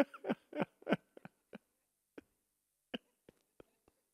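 A man laughing: a quick run of short bursts, about three a second, in the first second, then a few faint, scattered chuckles dying away.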